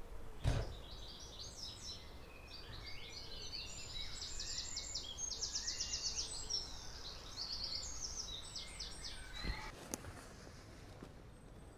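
Small songbirds singing, a busy song of quick high chirps and fast trills, fullest in the middle, over a steady low outdoor rumble. A short thump about half a second in, and a smaller one near the end.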